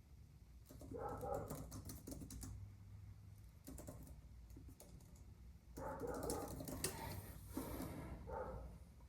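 Typing on a computer keyboard: runs of quick key clicks in two spells, with short whines from a dog at the same times.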